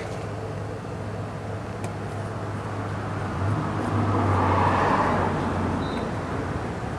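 Road traffic: a passing vehicle whose noise swells about halfway through and then fades, over a steady low hum.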